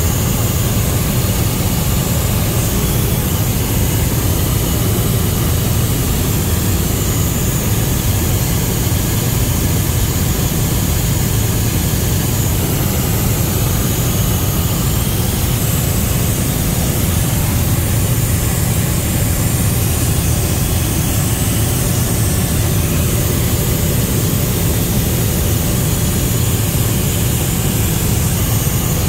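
Steady cabin noise of a helicopter in flight: a deep, even drone of engine and rotor, with a faint high steady whine over it, heard inside the cabin.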